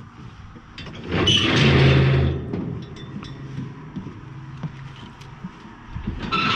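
Footsteps on the wooden planks of a railway ferry's car deck, with two louder swells of rushing noise, one about a second in and one near the end.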